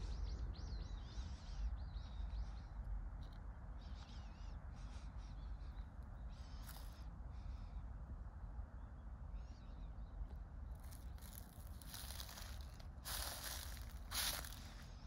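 Small birds chirping now and then over a low rumble of wind on the microphone. Near the end come a few louder bursts of rustling noise.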